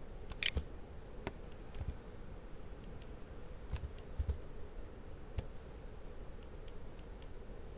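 Computer keyboard keystrokes: a few sparse, irregular key clicks over a faint steady hum.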